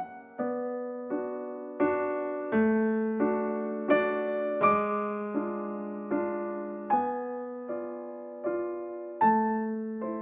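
Background music: a slow, gentle piano piece, its chords struck about every three quarters of a second and left to ring away.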